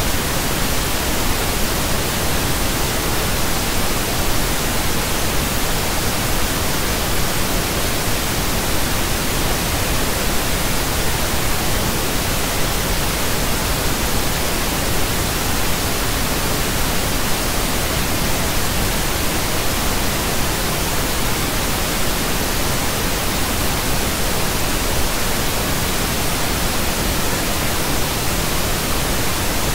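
Steady synthetic pink noise: a constant even hiss spread across the whole audible range, with no changes.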